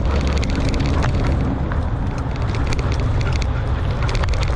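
Mountain bike ridden fast over a dirt trail: a steady low rumble of tyre and wind noise on the action-camera microphone, with frequent clicks and rattles as the bike runs over rough ground.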